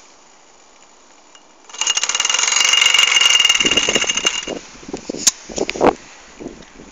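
Mamod Minor 1 toy steam engine's single oscillating cylinder running fast, a loud rapid rattling chatter with steam hiss that starts about two seconds in and lasts about three seconds. It then breaks up into a few irregular knocks.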